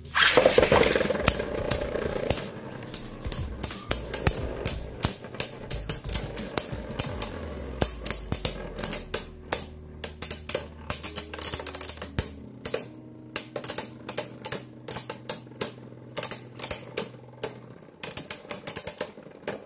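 Two Beyblade Burst spinning tops, including Glide Hyperion, launched into a plastic stadium with a loud rip and clatter at the start. They then spin and knock against each other in a fast, irregular run of sharp plastic-and-metal clacks.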